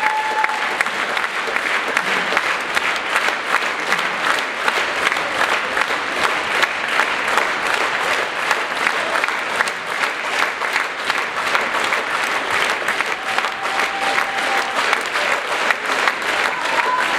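Large theatre audience applauding, a dense, steady clapping that keeps up without a break.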